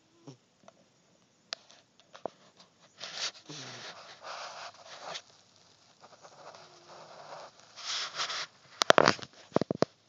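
A sleeping cat snoring: slow, breathy rushes of air, a long one about three seconds in and a shorter one near eight seconds, followed by a few sharp clicks near the end.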